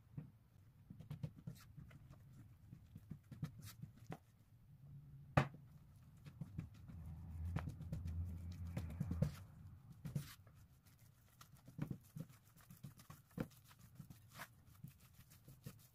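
Silicone spatula working flour and liquid into a dough in a glass mixing bowl: irregular soft knocks and scrapes against the glass, with a low rumble for a couple of seconds in the middle.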